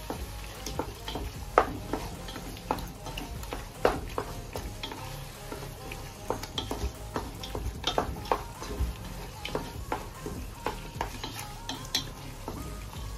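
Wooden spatula stirring and scraping a thick mutton masala in a nonstick pot, with irregular knocks against the pot over a steady sizzle from the pan.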